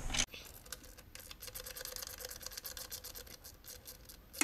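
A 7mm socket ratchet clicking quickly and faintly as it is worked back and forth to back out a fuel-rail bolt, with one sharper click near the end.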